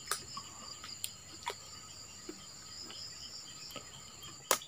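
Steady high-pitched chirring of insects, with a few sharp clicks scattered through it, the loudest near the end.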